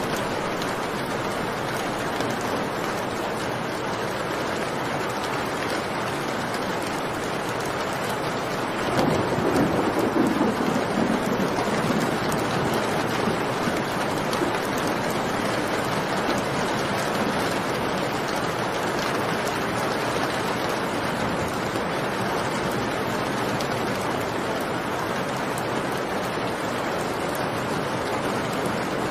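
Steady heavy rain, with a roll of thunder that swells up about nine seconds in and rumbles on for a few seconds before fading back under the rain.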